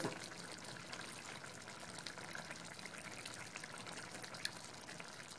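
Chicken curry simmering in a non-stick pan: faint, even bubbling with scattered small pops.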